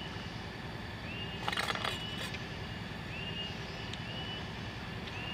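Steady hum of a rice-hulling machine's engine running in the background, with a short crackle about one and a half seconds in.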